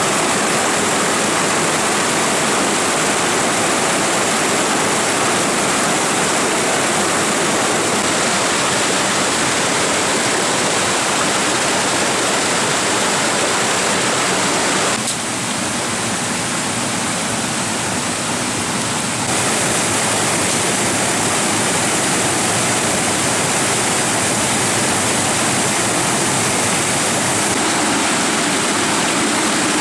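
A stream rushing loudly and steadily. The sound shifts slightly and dips a little for a few seconds midway.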